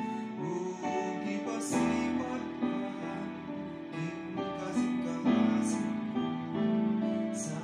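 Digital piano playing a slow, tender ballad: sustained chords under a melody line, with a new note or chord struck about every half second.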